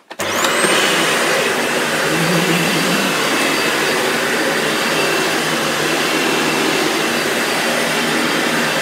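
Dyson Light Ball upright vacuum cleaner switched on: its motor spins up within half a second to a steady high whine over a loud rush of air, and keeps running evenly.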